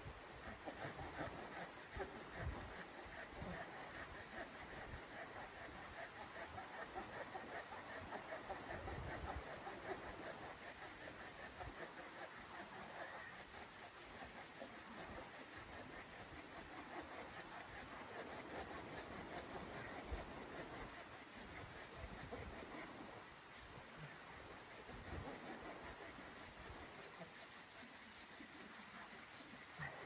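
Large knife blade scraping and shaving along a split piece of firewood in quick, continuous strokes, with a short pause about two-thirds of the way through.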